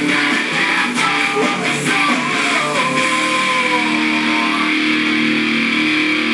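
Loud guitar-driven music playing, with electric guitar to the fore; from about three seconds in it settles into long held notes.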